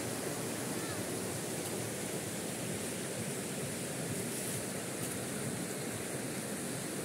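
A mountain river rushing over a low rocky cascade and rapids: a steady, even roar of white water.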